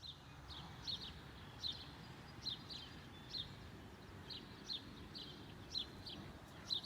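A small bird chirping over and over, short high notes often in quick pairs, about two a second, over a low steady rumble of outdoor background noise.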